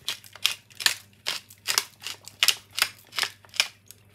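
Wooden pepper mill grinding black pepper: a quick run of short, crunchy grinding rasps, two or three twists a second, stopping shortly before the end.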